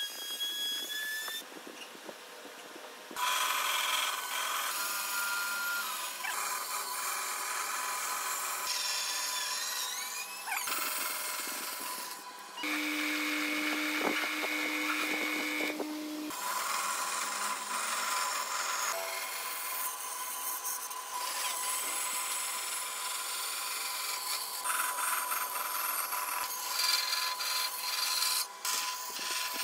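A series of short woodworking sounds with abrupt cuts between them: power tools working wood. A drill press bores into a board with a steady motor hum in the middle stretch, and a narrow saw blade cuts through a wooden block near the end.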